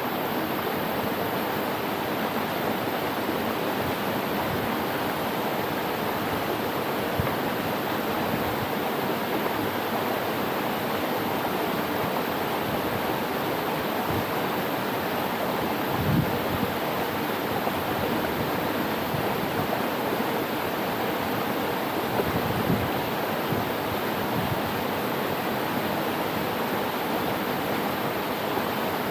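Steady rush of flowing water. A few brief low thumps come about halfway through and again a little later.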